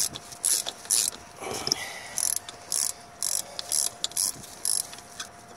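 Ratchet wrench clicking in short strokes, about two a second, with a brief pause about a second and a half in, as it spins the already-loosened one-way clutch pulley off the alternator shaft.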